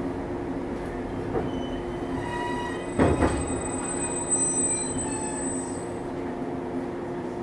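JR East 115 series electric train standing at the platform, its underfloor equipment humming steadily. A sharp thump comes about three seconds in, with faint high squealing tones around it.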